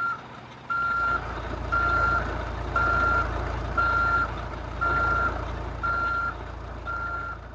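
Dump truck's reversing alarm: a steady high beep about once a second, eight beeps, over a low engine rumble that starts about a second in.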